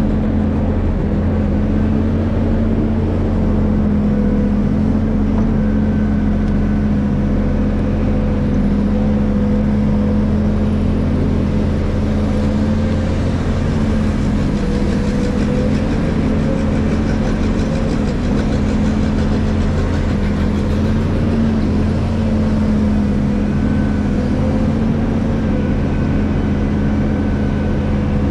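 Hydraulic excavator's diesel engine running steadily, a constant low hum with a steady tone over it.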